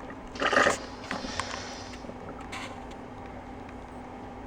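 Automatic coffee machine running after a cappuccino was selected: a low steady hum with a short louder burst of noise about half a second in and a few faint clicks.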